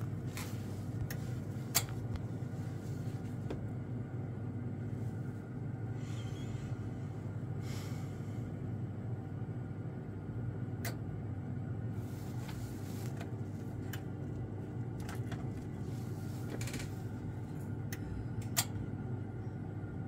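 Old Vaillant combi boiler switched on but not firing: a steady low hum with a few sharp clicks.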